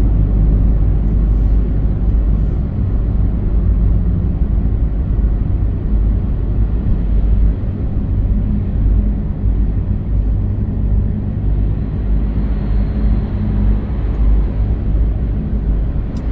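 Steady low rumble of engines and machinery in a ferry's enclosed car deck, heard from inside a car as vehicles disembark, with a few steady low hums running through it.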